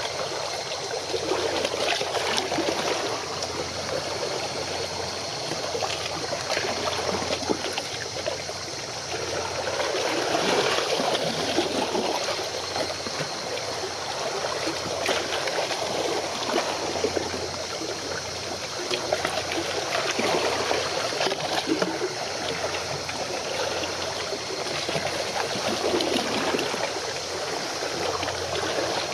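Water sloshing and lapping against the shore, swelling and easing every few seconds, over a low steady hum.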